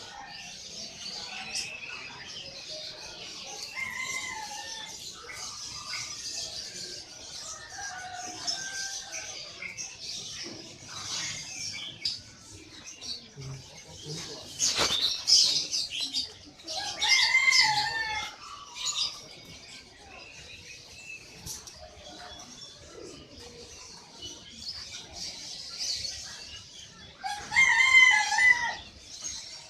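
Many caged small birds chirping constantly, with a rooster crowing loudly twice, once past the middle and once near the end. A sudden loud burst comes shortly before the first crow.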